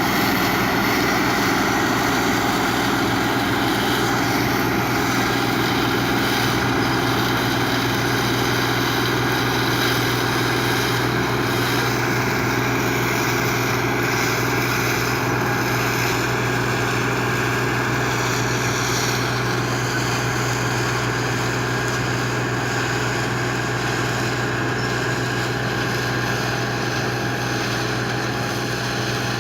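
New Holland 8080 combine harvester running steadily while threshing rice, its engine and machinery giving a constant drone with a strong low hum.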